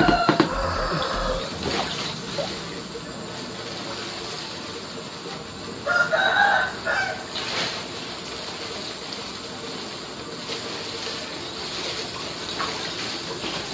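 Pond water splashing and sloshing as a koi is caught, with a rooster crowing; the crow, about six seconds in, is the loudest sound.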